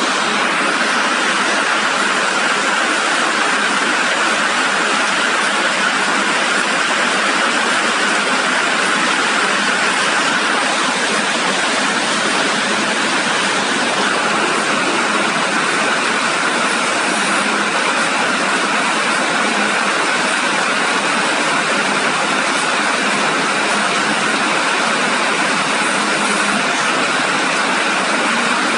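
Steady rain falling: an even, unbroken hiss that doesn't change.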